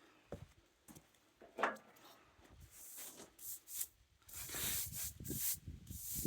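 Hand brushing and rubbing sawdust off a freshly sawn board, repeated short scraping swishes, with a few soft knocks of the wood being handled before them.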